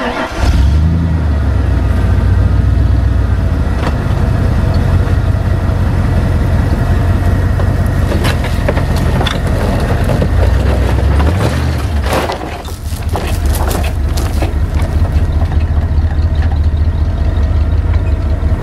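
Ford F-150 pickup's engine running hard as the truck pulls forward against a chain to drag scrap culverts off its flatbed, with clanks of metal about eight to ten seconds in. The engine eases off briefly about twelve seconds in, then pulls again.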